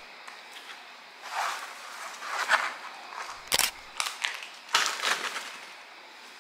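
Plastic-wrapped food packages and a canvas tote bag rustling as the packages are handled and packed into the bag, in several short bursts, with one sharp knock a little past halfway, the loudest sound.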